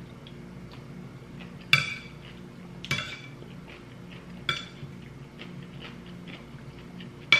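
Metal spoon and fork clinking against a plate while eating: four sharp clinks at irregular intervals, with faint small ticks of the cutlery between them.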